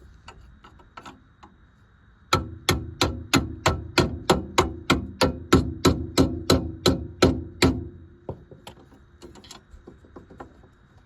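Hammer striking metal in a steady run of about seventeen ringing blows, about three a second, with a few lighter taps before and after.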